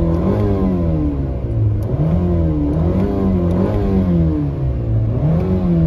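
Car engine being revved by the gas pedal, heard from inside the cabin: the revs climb and fall back again and again, several times in a few seconds.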